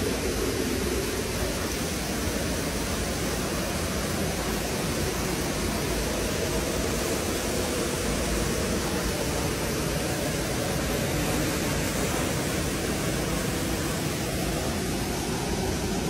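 Steady rushing of a small waterfall pouring into a rock pool, an even hiss-and-rumble of falling water that holds constant throughout.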